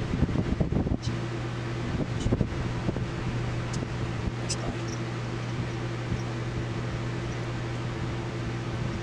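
Electric fan running with a steady hum. A few light knocks and clicks of small parts being handled come in the first couple of seconds.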